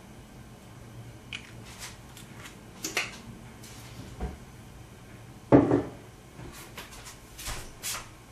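Scattered clicks and knocks of kitchen items being handled, with one louder thump about five and a half seconds in.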